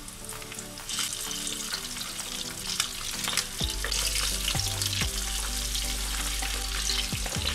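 Floured chicken pieces sizzling and crackling in a pan of hot sunflower oil as they are added one by one, the frying growing louder as more pieces go in.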